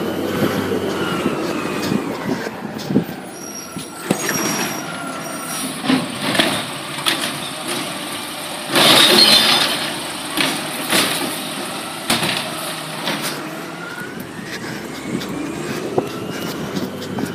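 Mack automated side-loader garbage truck revving up and down as its hydraulic arm lifts and tips a recycling cart. The load of recyclables crashes into the hopper about nine seconds in, with scattered knocks of the cart and arm around it.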